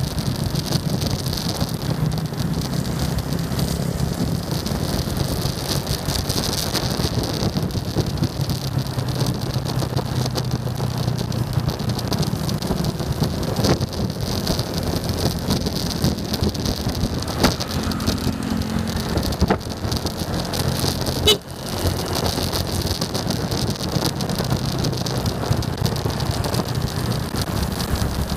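Motorcycle ride in city traffic heard from a camera on the moving bike: a steady low engine drone under continuous wind rush on the microphone, with a few sharp clicks, the loudest about 21 seconds in.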